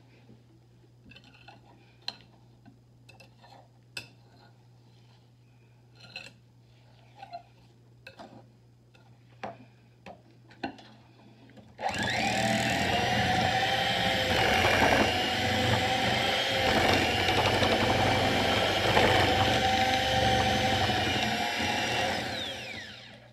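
Electric hand mixer running, its beaters whipping a butter, sugar and egg batter in a glass bowl: it starts suddenly about halfway in with a steady motor whine and winds down and stops just before the end. Before it starts there are only scattered light taps and clicks.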